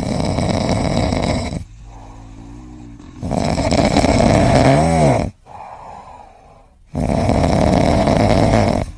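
Sleeping tabby cat snoring: three loud snores a few seconds apart, with quieter breaths between them. The second snore ends in a brief tone that bends up and down.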